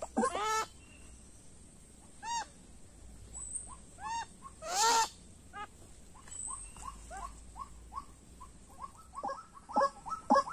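White-breasted waterhen calling: loud arched croaking notes spaced a second or two apart, then a run of softer short notes that grows into a faster, louder series near the end.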